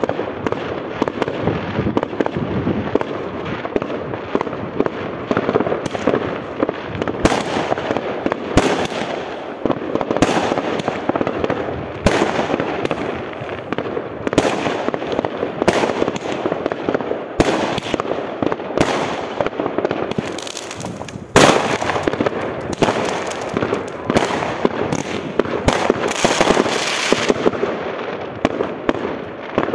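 Fireworks going off in a dense, continuous barrage of bangs and crackles, with one especially sharp, loud bang about twenty-one seconds in.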